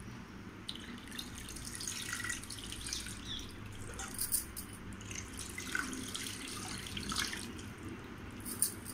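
Tamarind water dripping and splashing off a wet hand into a steel pot of fish curry base: small irregular drips and splashes, a few of them sharper.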